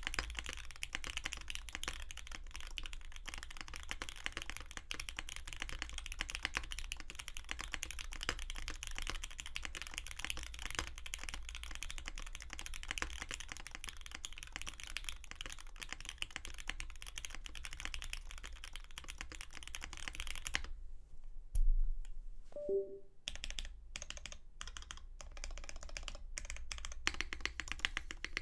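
Bauer 2 custom mechanical keyboard with lubed Cherry MX Black linear switches, an aluminium plate and GMK keycaps, typed on quickly and steadily. About three quarters of the way through, the typing pauses briefly for a single low thump, then the keystrokes resume, sparse at first and then steady again.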